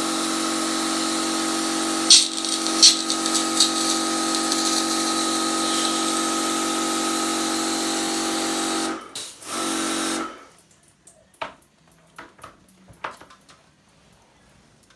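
A small pressure washer runs steadily with a hiss of spray, as when an air conditioner is being washed. It cuts out briefly about nine seconds in, starts again, and stops about a second later. After that there are only scattered light clicks and knocks.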